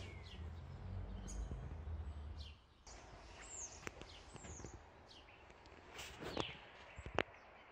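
Garden ambience: small birds chirping in short, falling calls now and then, with a few soft knocks. A low rumble underlies the first two and a half seconds, then drops away.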